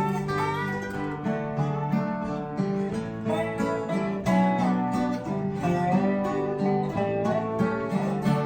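Instrumental break of a folk song: acoustic guitar and other plucked strings picking a melody over strummed chords.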